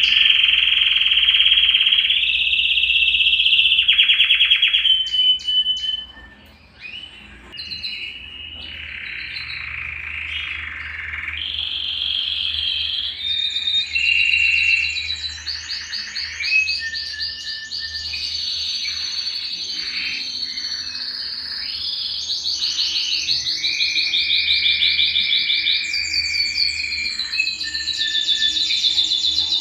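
Male domestic canary (the colour canary sold in Brazil as 'canário belga') singing its full song. It is a continuous string of whistled notes and fast rolling trills, each held a second or two before jumping to a new pitch, with a short break about six seconds in.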